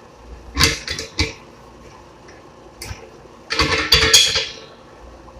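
Hard objects clanking and clattering: three sharp knocks about a second in, then a louder run of clatter around four seconds in.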